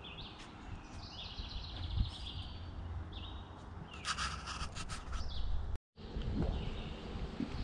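Wild songbirds singing and calling in short high phrases, several repeated, with a rapid rattling call about four seconds in and a low rumble underneath. The sound cuts out completely for a moment about six seconds in.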